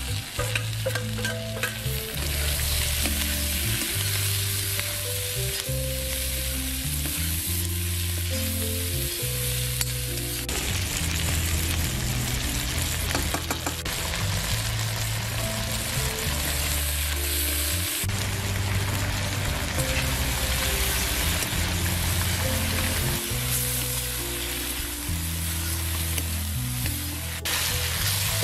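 Diced paneer, capsicum and onion sizzling in a hot iron wok while a metal spatula stirs and scrapes them around the pan. The sizzle is steady, with scattered clinks and scrapes of the spatula.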